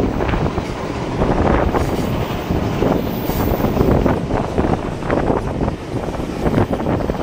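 Passenger carriages of a steam-hauled train on the move, heard from an open carriage window: a steady rumble of wheels on the rails, with wind buffeting the microphone.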